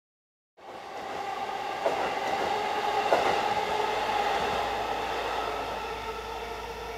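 Keihin-Tohoku Line electric commuter train passing, its wheels clacking sharply over rail joints twice, about two and three seconds in. The running noise then eases off as it goes by.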